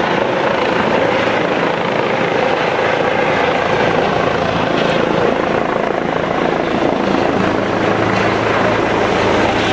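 ADAC Eurocopter EC135 rescue helicopter flying low overhead on its approach to land: a loud, steady rotor and turbine sound with no breaks.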